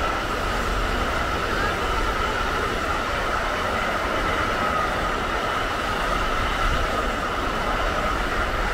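A locomotive-hauled train passing close by over a level crossing: a loud, steady rolling noise of wheels on rails, with a steady high ringing tone above it.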